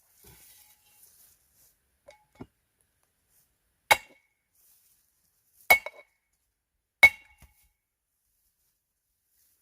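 Three sharp strikes of a tool splitting firewood, under two seconds apart, each with a short metallic ring, after a couple of faint knocks.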